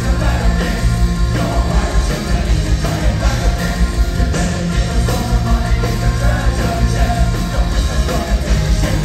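A heavy metal band playing loud and steady live: electric guitar, bass, keytar, keyboards and a full drum kit, with a singer's voice over them.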